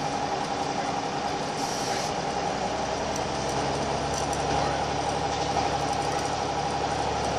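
Scania L94UB bus's nine-litre five-cylinder diesel engine running steadily, heard from inside the passenger cabin with a steady drone and whine.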